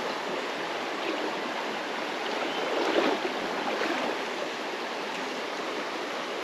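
Creek water running steadily over a shallow stream bed, with a brief louder swell about three seconds in.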